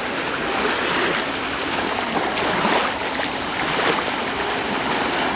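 Small sea waves washing and lapping at the shoreline, with light splashing in the shallows.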